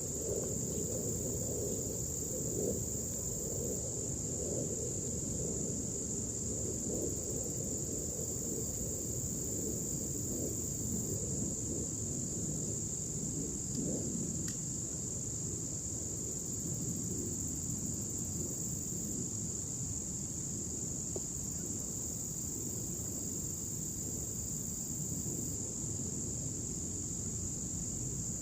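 Steady high-pitched insect chorus, crickets trilling without a break, over a low, even rumble.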